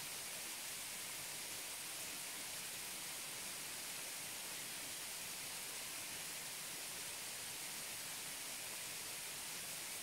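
Waterfall heard close up: falling water rushing in a steady, even hiss, mostly high-pitched, with no separate splashes standing out.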